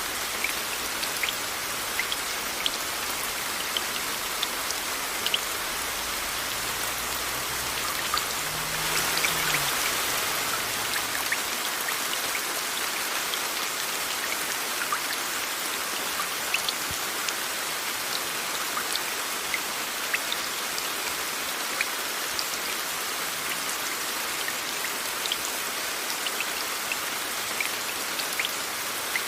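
Steady rain with individual drops ticking sharply now and then, over an even hiss of white noise. The rain swells briefly about a third of the way in.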